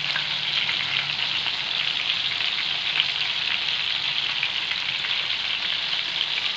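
Batter-coated prawns deep-frying in hot oil in a kadhai: a steady sizzle with many small crackling pops.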